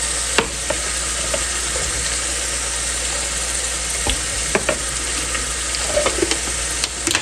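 Onions frying in oil sizzling steadily in a pan, with a few light clicks and scrapes of a metal spoon working yogurt in a plastic bowl.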